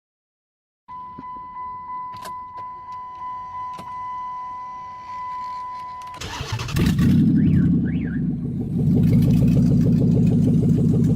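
A steady high electronic tone for about five seconds, then a Chrysler 300C's 5.7-litre Hemi V8 cranks and catches about six seconds in and runs loudly and steadily.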